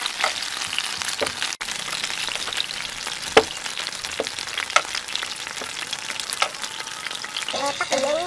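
Chicken drumsticks frying in oil in a pan: a steady sizzling hiss with occasional sharp spits and pops.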